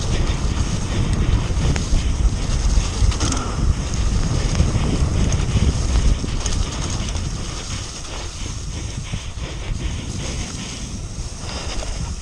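Mountain bike running fast down a muddy dirt trail: wind buffeting the on-bike camera microphone over tyre rumble, with the bike clicking and rattling over bumps. It eases off somewhat about seven seconds in.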